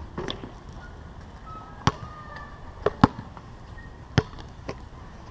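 A basketball bouncing on a hard outdoor court: a handful of sharp, separate bounces roughly a second apart, the loudest a quick pair about three seconds in.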